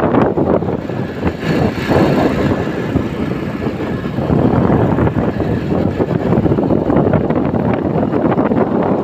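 Honda motorcycle running steadily at road speed, its engine noise mixed with a dense, fluttering rush of wind over the microphone.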